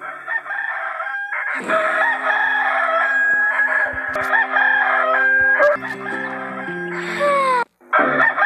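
A rooster crowing, ending in a long falling note, over background music.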